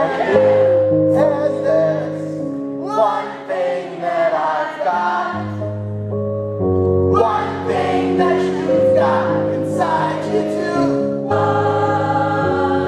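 Live rock-band music: held keyboard chords that change every second or two, with many voices singing along.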